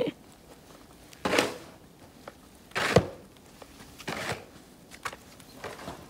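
Snow shovel scooping and scraping through deep fresh snow: three short crunching strokes about a second and a half apart, the middle one the loudest and sharpest.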